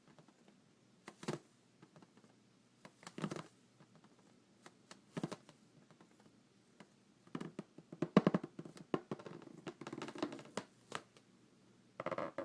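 Rubber balloon handled by hands and fingernails, giving short squeaks and scratches in separate bursts. The bursts are a few seconds apart at first, then come thick and fast about seven to eleven seconds in.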